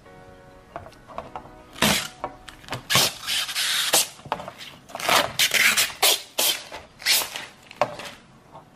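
Protective plastic film being peeled off a round plexiglass (acrylic) sheet: loud, irregular crackling and rustling of the film, starting about two seconds in and running in quick bursts until near the end.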